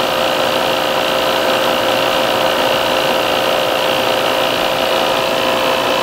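Appion G5 Twin refrigerant recovery machine running steadily while pulling R-410A out of an air conditioner into a recovery tank: an even mechanical drone with a constant tone through it.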